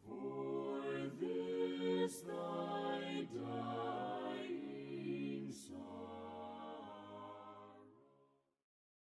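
Voices singing a hymn a cappella in harmony, in slow held notes. The singing fades and ends about eight seconds in.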